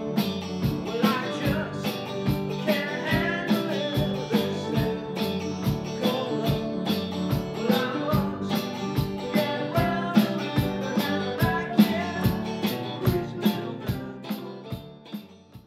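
Country-rock style music led by guitar over a steady beat, fading out near the end.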